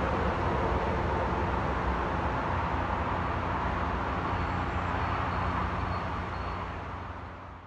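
Diesel commuter train running in the distance, a steady low engine rumble under a broad hiss, fading out near the end.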